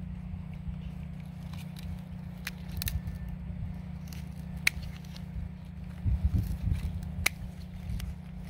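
Hand pruning clippers snipping roselle (sorrel) stems at the base of the fruit: several sharp clicks of the blades closing, the crispest about halfway through and again near the end. A low rumble runs underneath and swells briefly in the second half.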